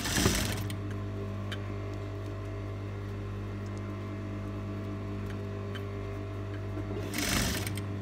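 Fabric rustling briefly as it is handled and pushed into place, once at the start and again about seven seconds in, over a steady low hum.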